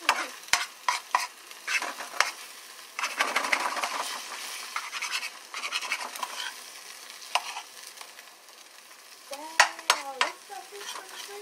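Eggs sizzling in a nonstick frying pan while a slotted turner stirs and breaks them up, with repeated scrapes and taps of the utensil against the pan.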